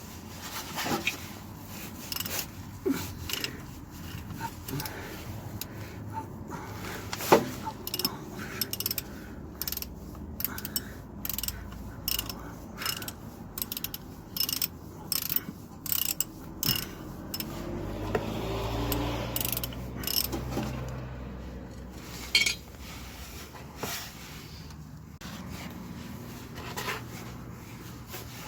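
Ratchet wrench clicking in short runs as a hex socket turns a gearbox plug on a Mercedes Vito transmission, with scattered knocks of metal tools.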